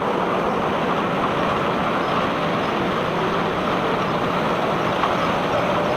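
Self-unloading ship's unloading machinery running with a steady, loud, even noise.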